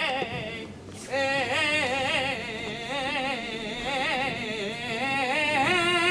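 A saeta: one voice singing unaccompanied, in long ornamented runs that waver up and down in pitch. There is a short breath about a second in, and near the end the voice settles on a long held high note.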